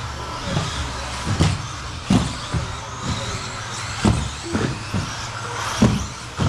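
1/10-scale electric RC off-road cars racing on an indoor carpet track. There is a steady running noise of motors and tyres, broken by about nine irregular thuds from the cars.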